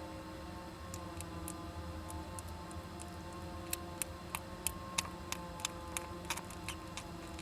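A few sharp ticks, then from about four seconds in a quicker run of them at roughly three a second, inside a nest box housing a Japanese giant flying squirrel and its kit, over a steady hum.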